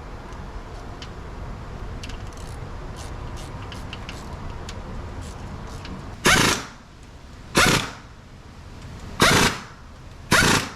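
Air impact wrench fired in four short bursts, each about half a second long and a second or so apart, starting about six seconds in. Before them come a few faint light ticks of hand work on metal parts.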